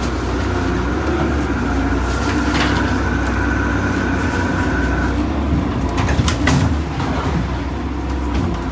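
Lobster boat's engine running steadily, with a thin high whine for about three seconds and a few knocks and clatters of gear being handled on deck, mostly about two and a half and six seconds in.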